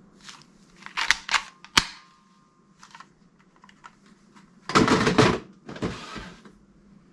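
Plastic toy guns clicking and clattering as they are handled: a few sharp clicks about a second in, then two short bursts of rattling clatter near the end.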